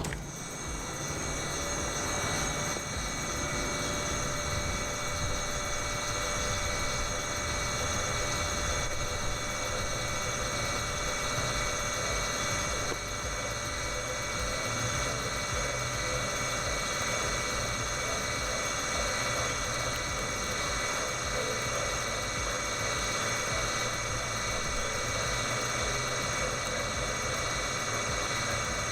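Kokusan top-discharge centrifuge running: a steady mechanical hum with several high whining tones from the motor and spinning basket. One whine comes in about a second in, rises slightly and then holds steady as the machine comes up to speed.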